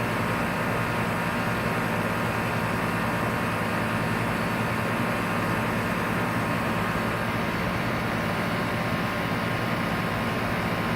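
Outdoor air-conditioner compressor unit running steadily: an even mechanical hum with several steady tones over a whooshing noise.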